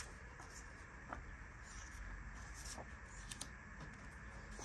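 Faint rustling and a few light ticks of scrapbook paper sheets being handled and shuffled, over a low steady room hum.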